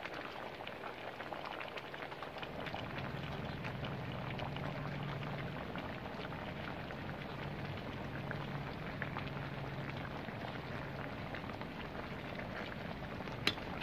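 Thick coconut-milk stew of squash and mung beans simmering in a wok, with a steady patter of small bubbles popping at the surface. A ladle clicks against the wok near the end.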